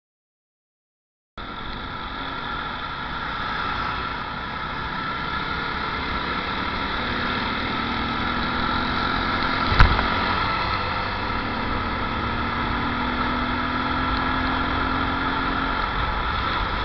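Motorcycle riding noise: steady engine and road noise while cruising in traffic, after about a second of dropout at the start. A single sharp click a little past halfway.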